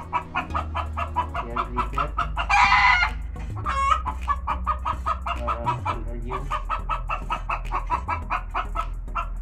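Chickens clucking in quick, rhythmic repeated calls, with a loud brief squawk about two and a half seconds in and a short higher call just after. A low steady hum runs underneath.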